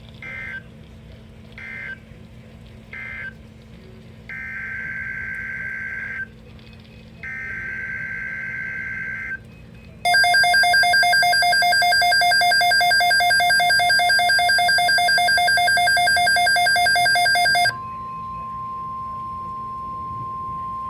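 NOAA Weather Radio's EAS/SAME alert tones, in three stages. First come three short warbling data bursts and then two longer ones. About ten seconds in, a loud pulsing electronic alarm sounds for roughly eight seconds, and after it a steady single tone near 1 kHz, the NWR 1050 Hz warning alarm tone, which announces the next alert message.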